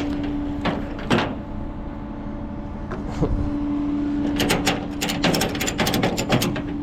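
Steady hum of the tow truck's engine running, with a few knocks early on and a quick run of sharp metallic clicks and clanks between about four and six and a half seconds in, as the car is readied for unloading.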